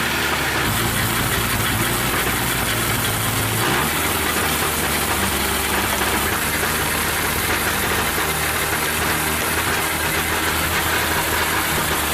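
An engine running steadily under machine noise; its low hum changes about four seconds in.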